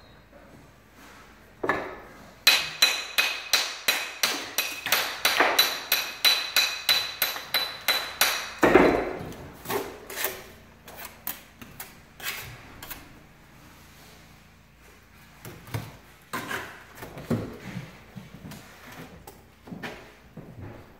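A mason's hammer chips and trims a natural stone veneer piece in a fast run of sharp, ringing strikes, about four a second, lasting some six seconds. After that come scattered knocks and clatter as stones are handled and set.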